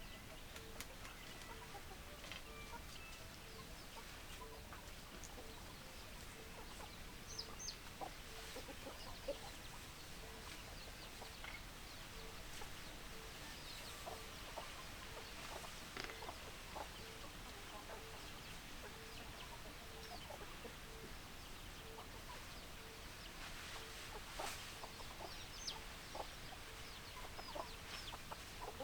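Chickens clucking, with many short scattered calls throughout. A faint pulsing note repeats evenly, under two times a second.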